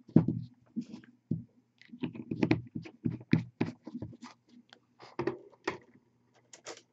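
Irregular light clicks, taps and small scrapes from a paintbrush and fingers working on a plastic miniature held close to the microphone, over a low steady hum.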